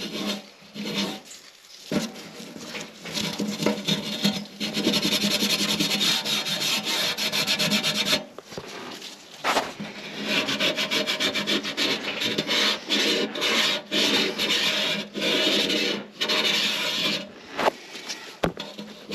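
Something being scraped hard and fast, back and forth against a hard surface, in rapid repeated strokes with a short pause about eight seconds in.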